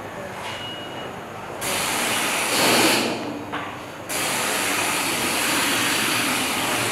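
Loud, even electronic hiss from a wall installation of chained circuit modules, switching on abruptly about a second and a half in, cutting out for about a second near the middle and snapping back on.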